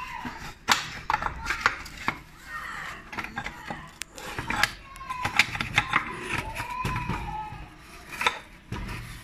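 Irregular clicks and knocks of hand tools and metal parts being handled at a motorcycle's front fork and mudguard, with voices in the background.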